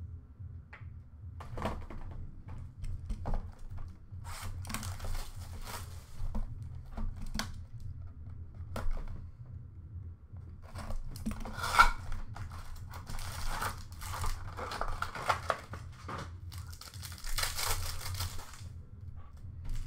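A cardboard box of hockey trading cards being slit open and its foil card packs torn open, with wrappers crinkling among light knocks of handling. There is a sharp loud tear about halfway through, and a longer crinkling stretch near the end.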